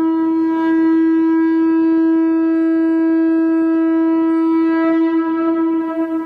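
A conch-shell trumpet blown in one long, steady note that wavers slightly near the end.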